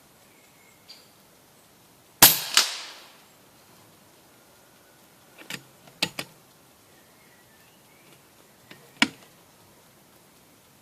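FX Elite air rifle firing once about two seconds in: a sharp crack, then a second sharp report a fraction of a second later that fades over about a second. A few lighter clicks follow around six seconds in, and one more sharp click near nine seconds.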